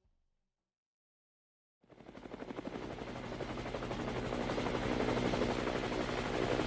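Silence for about two seconds, then aircraft noise fades in: a fast fluttering drone over a steady low hum and a faint high whine, swelling steadily.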